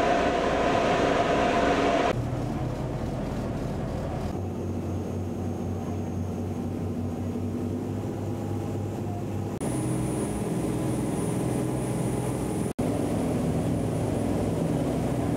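Small passenger ferry's diesel engine running steadily, heard on board as a low drone, with abrupt changes in tone a few times. A louder rushing hiss sits over it for the first two seconds.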